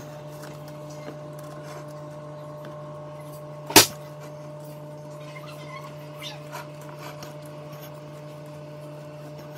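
Plastic spatula scooping and spreading soft cream over a puff-pastry cake layer, giving faint soft scrapes, over a steady electrical hum from a kitchen appliance. One sharp click sounds a little under four seconds in.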